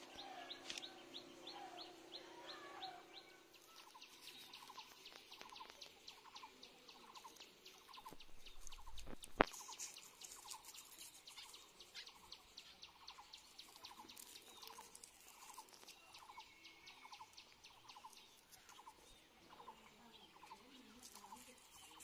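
Faint outdoor ambience of calling animals: a short call repeating about three times every two seconds, over a rapid high-pitched trill. There is a single sharp knock about nine seconds in.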